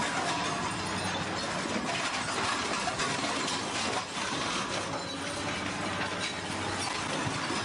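McHale V660 round baler and its tractor running, a steady clattering rattle full of clicks, as the tailgate lifts and a finished bale is let out.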